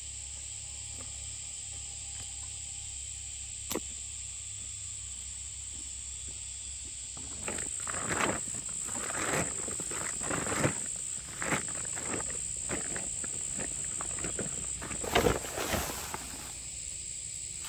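Insects, crickets or cicadas, keep up a steady high-pitched drone. A single click comes about 4 s in, and from about halfway a run of irregular rustling, scuffing sounds begins, some of them sharper and louder.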